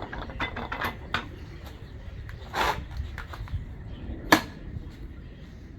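Workshop handling noise: scattered light clicks and knocks, a short scrape about two and a half seconds in, and one sharp knock a little after four seconds, as tools and parts are handled around the motorcycle.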